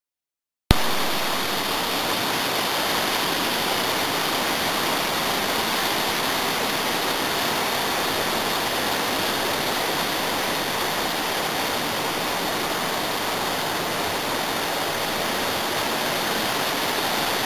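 River rapids rushing over and between boulders: a steady, unbroken rush of whitewater that cuts in abruptly just under a second in.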